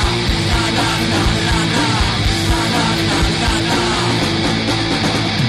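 Instrumental stretch of a punk-rock song: electric guitars and bass over a driving drum beat.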